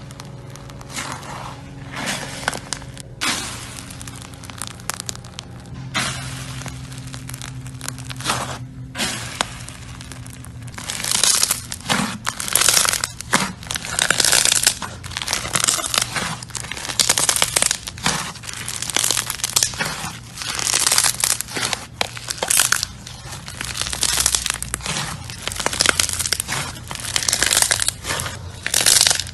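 Slime being squeezed and stretched by hand, with repeated squishing, crackling bursts that grow louder and come about once or twice a second from roughly a third of the way in.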